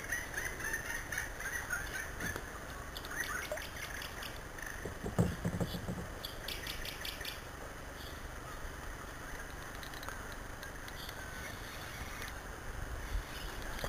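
Outdoor river ambience with birds chirping and calling, a single knock about five seconds in, and a short burst of rapid high ticks just after it.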